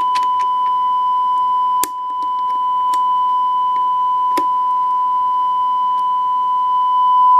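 A steady 1 kHz test tone from a Sony Betacam SP camera's built-in speaker, broken by sharp clicks from its switches and buttons; the tone drops out briefly at a loud click about two seconds in, then returns.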